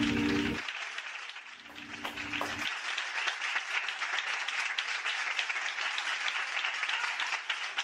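Audience applauding with many hands clapping. The backing music ends just after the start, and a short final chord sounds about two seconds in; the clapping then runs on steadily.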